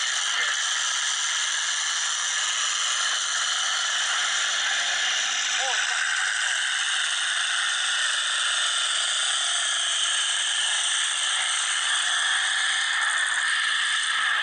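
Steady, loud demolition-derby din: hard-run truck engines rattling, mixed with the noise of a large grandstand crowd. A brief rising-and-falling tone cuts through about six seconds in.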